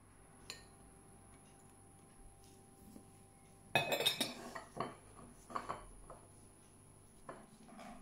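Crockery clinking and clattering as dishes are set down and handled on a table: a light tick about half a second in, a quick cluster of clatters a little before halfway, then a few lighter clinks.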